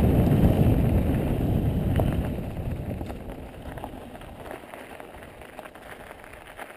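Wind buffeting an action camera's microphone over the rumble and crunch of mountain-bike tyres rolling on a gravel dirt trail. It starts loud and fades to a much lower level after about two seconds.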